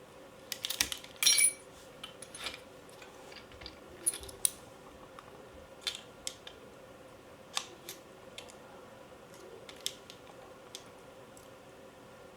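Small metal parts and tools of a Cyma CM040 airsoft AK handled during disassembly: scattered metallic clicks and clinks. The loudest is a short ringing metal scrape about a second in.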